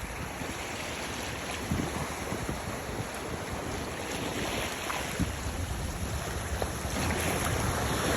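Wind buffeting the microphone over a steady wash of sea water, swelling slightly toward the end.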